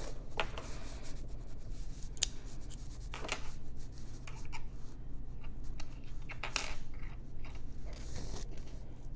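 Small Master Lock padlocks and their keys being handled: scattered sharp metal clicks and short clinks and scrapes as the shackles are pushed shut and the keys are set down.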